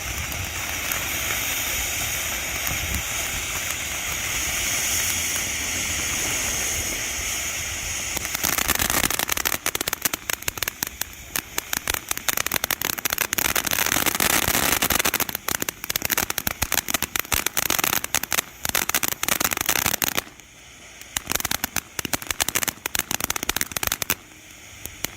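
Two TNT Short Stack firework fountains burning: a steady hissing spray of sparks, then from about eight seconds in a dense, rapid crackling that thins out briefly twice near the end.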